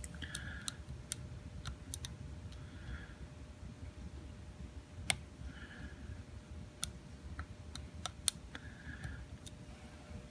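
Lock pick working the six sliders of a Supra-C key safe slider lock: sharp small metal clicks at irregular intervals, with a few short scrapes between, the loudest clicks about five and eight seconds in.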